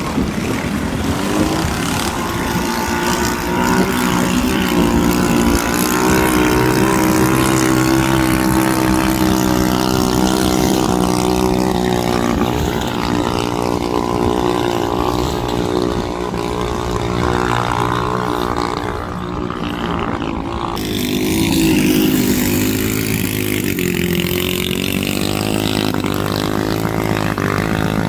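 Racing vỏ lãi long-tail boats' engines running hard at speed, a steady loud engine drone whose pitch shifts about three-quarters of the way through.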